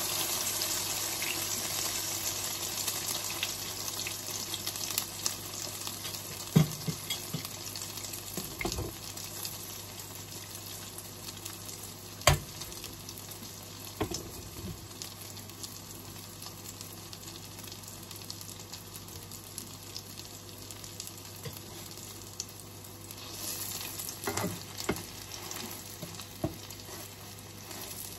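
Tortang okra, okra in beaten egg, frying in oil in a pan: a steady sizzle, loudest at the start and settling after a few seconds. A few sharp clicks come through the sizzle, two of them loud, about six and twelve seconds in.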